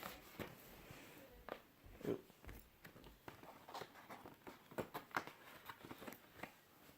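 Faint handling noises of record packaging: scattered light taps and rustles of paper and cardboard, with a soft thump about two seconds in.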